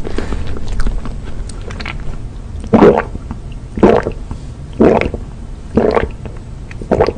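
Close-miked gulps of a person drinking milk from a glass: five loud swallows about a second apart, starting about three seconds in.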